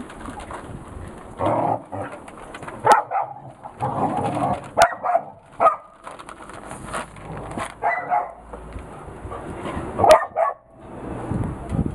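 A puppy eating food from a thin plastic tray, with sharp clicks against the tray three times. Repeated short animal calls sound throughout.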